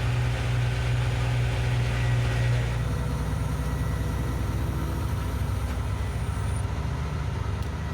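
Knuckle boom crane truck's engine running steadily while the crane holds a lift, a low drone whose note shifts about three seconds in.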